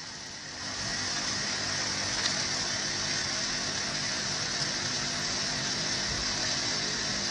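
Aquarium filter running: a steady rush of moving water with a faint hum beneath it, a little louder after the first second.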